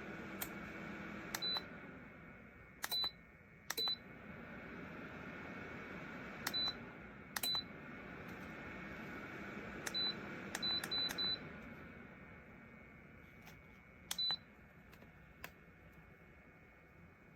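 Lasko Ellipse ceramic tower heater beeping as its controls are pressed: about ten short, high, single-pitch beeps, each with a click, at irregular intervals, three in quick succession near the middle. Under them the heater's fan runs steadily, then dies away over the last few seconds.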